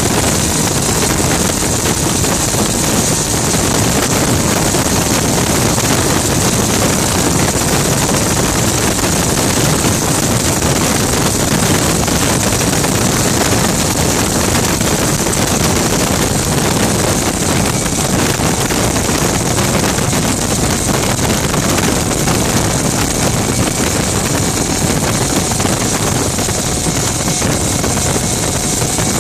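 Kerosene-fuelled gas turbine engine of a Rover Jet 1 recreation running steadily while the car is driven at speed: a continuous high-pitched whine over a dense rush, with wind buffeting the microphone in the open cockpit.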